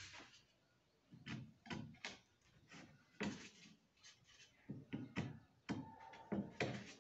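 Wooden tongue-and-groove cedrinho ceiling boards knocking and rubbing against each other and the wooden jig as they are laid in by hand: scattered light knocks and scrapes at irregular intervals.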